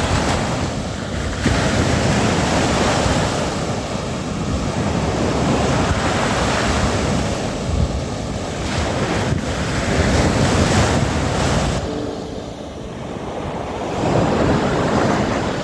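Sea surf: waves rolling in and washing back, the noise swelling and easing every few seconds, with wind buffeting the microphone.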